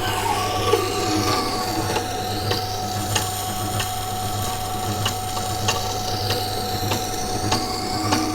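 Water-cooled stone wheel grinder running with a steady hum while a carbon-steel knife blade is held against the wet wheel, a scraping rub that sweeps down and back up in pitch as the blade travels along the wheel, with light regular ticks. This is the grinding of the secondary bevel on a new, never-sharpened blade.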